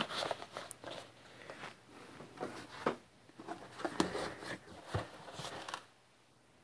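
Cardboard boxes being handled: irregular scraping, rustling and light knocks of cardboard against cardboard as a flat box is slid and lifted out of a larger carton. The sounds stop about six seconds in.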